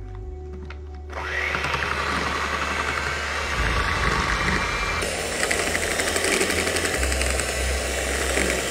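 Electric hand mixer starts about a second in and runs steadily, its motor whirring as the beaters whip an egg and sugar cake batter in a glass bowl.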